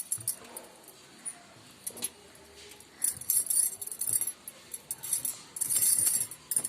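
Cloth being handled and shaken out as clothes are loaded into a front-load washing machine drum: light clicks and knocks, then two spells of rustling fabric, about three seconds in and near the end.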